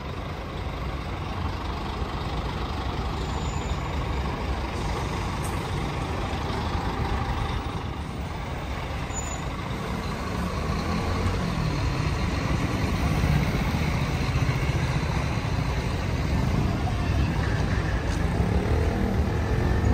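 Large diesel bus engine running with a steady low rumble, its pitch rising and falling a few times in the second half.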